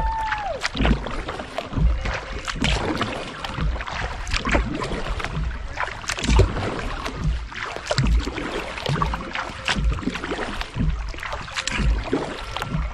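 Kayak paddle strokes on calm river water: the blades dip and splash in a steady rhythm, with water dripping between strokes.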